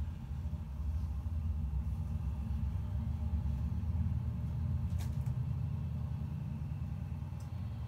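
Low, steady rumble of two locomotives hauling a small freight train slowly across a viaduct, with a brief click about five seconds in.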